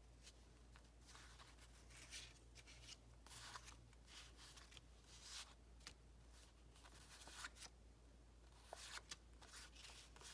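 Faint rustling and light clicks of paper and packaging being handled, over a low steady hum.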